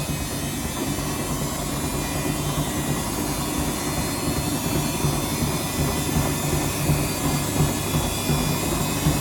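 Samsung front-loading washing machine on its spin cycle: the drum turning with a steady motor hum and rumble, getting slightly louder near the end.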